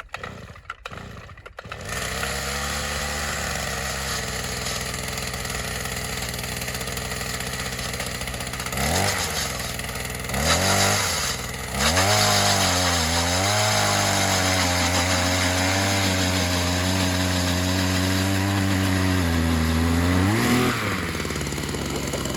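Small gasoline engine of a power ice auger starting about two seconds in and idling, then revved up and down a few times and held at high speed for several seconds while drilling a hole in the lake ice, dropping back toward idle near the end.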